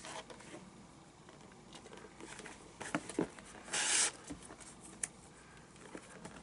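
Glove lace being pulled through the fingertip lacing holes of a baseball glove: a few short, scratchy rasps and light clicks, the loudest a brief rasp about halfway through.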